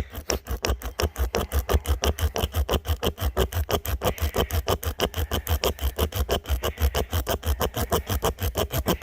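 Tire plug kit's spiral reamer being worked rapidly in and out of a puncture in a radial tire, rasping through the rubber and steel belts with several quick strokes a second. The reaming smooths the jagged edges into a round hole ready for a rope plug.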